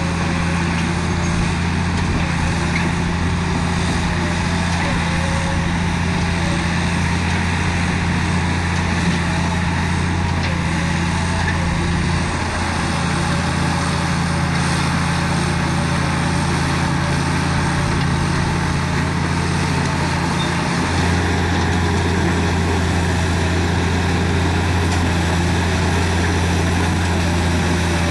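Caterpillar D7G bulldozer's six-cylinder diesel engine running steadily, with small shifts in its low note about halfway through and again about three-quarters through.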